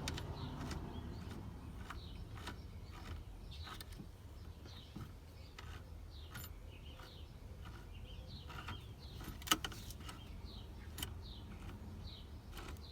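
Scattered faint clicks and light metal taps as a seat belt anchor bolt is turned by hand, over a low steady hum, with a couple of sharper clicks near the end.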